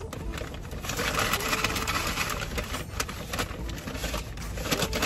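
Brown paper fast-food bag rustling and crinkling as a hand digs around inside it, with irregular crackles.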